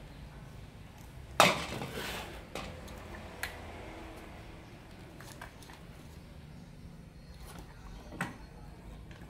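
Clatter of tools and plastic lamp parts being handled on a wooden workbench. There is one sharp knock about a second and a half in with a brief rattle after it, then a few light clicks and taps.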